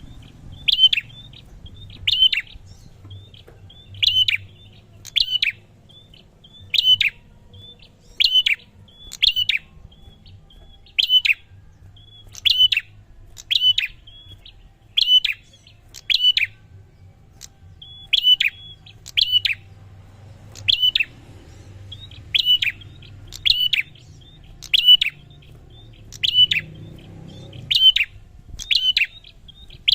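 A prinia (prenjak) calling over and over: short, sharp, high calls about one every second or so, some given in quick pairs.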